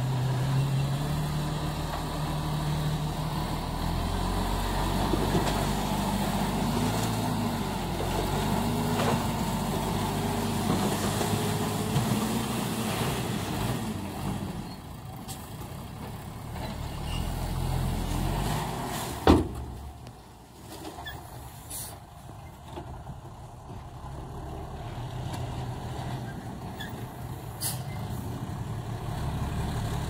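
Diesel tipper dump truck's engine running and revving up and down as the truck reverses and raises its bed to dump a load of soil. A single sharp bang about two-thirds of the way through is the loudest moment, after which the engine settles to a quieter, steady run.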